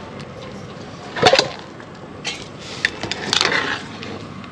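A metal perforated ladle knocking and scraping against an aluminium pan as cooked rice is drained of its starchy water. There are a few sharp clinks, the loudest about a second in, over a steady background hiss.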